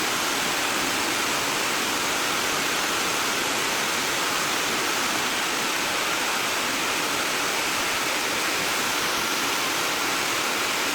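Steady rushing water, an even unbroken hiss with no breaks or single events.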